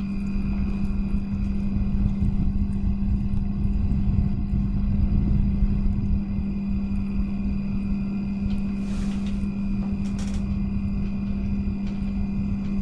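Newly powered-on PC with a Cooler Master MasterLiquid ML240L V2 RGB all-in-one liquid cooler: its fans and pump running with a steady hum over a low rumble, the sound of the loop on first start-up, when air in the coolant can make a water sound. Two short hisses come about two-thirds of the way through.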